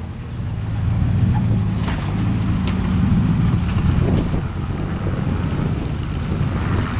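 Engine of a 4x4 off-road vehicle running, with a steady low rumble that swells about a second in. A few sharp knocks come about two, two and a half, and four seconds in.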